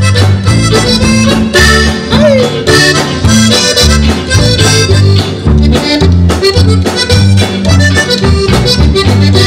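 Conjunto band playing an instrumental passage: a Hohner button accordion carries the melody over bajo quinto strumming, electric bass and drums, with a steady beat.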